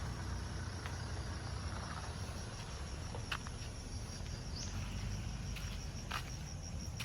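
Insects chirping in a steady, evenly pulsed high trill, over a low rumble with a few faint clicks.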